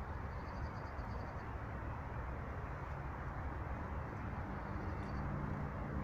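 Steady low outdoor rumble. A small bird gives a faint high rapid trill twice, near the start and again about five seconds in.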